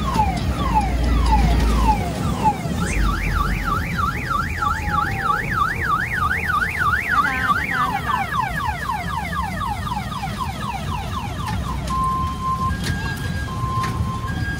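Electronic car-alarm-style siren cycling through its tones: repeated falling sweeps, then a fast up-and-down warble about three times a second, then quicker falling sweeps, and near the end steady beeps alternating between two pitches, over a low rumble.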